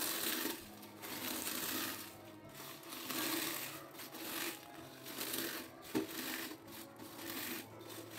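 Fried corn flakes being crushed by hand in a steel bowl, a dry crunching and crackling in repeated strokes as the crisp flakes break into a coarse powder.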